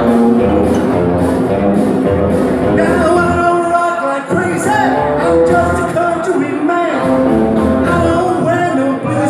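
Live rock and roll band playing, with singing over a steady drum beat.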